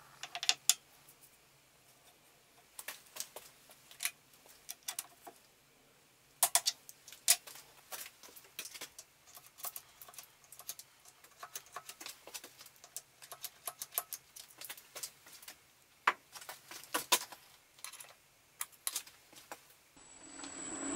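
Scattered light clicks and knocks, single or in small clusters, of metal parts and tools being handled by hand at a machine vise and shaper head, over a faint steady hum.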